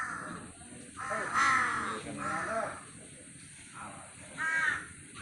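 Harsh animal calls, four in a row: a short one at the start, a longer, louder one about a second in, another just after it, and a short one near the end.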